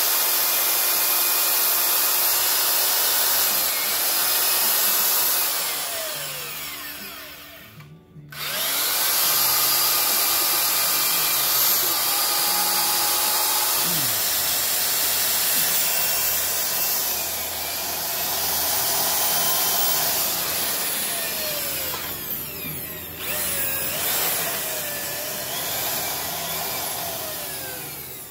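Electric drill with a long bit boring through the pressure-treated wooden beam of a dock frame, the motor running steadily with its pitch sliding as the load changes. It stops briefly about eight seconds in, then starts again and slackens once more a few seconds before the end.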